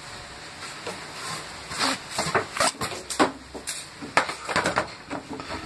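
Irregular knocks, clicks and rustles of corrugated plastic electrical conduit being handled and shifted about on a workbench, starting about two seconds in.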